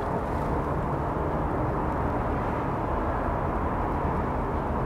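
Steady low rumbling background noise with a faint low hum, even throughout, with no distinct events.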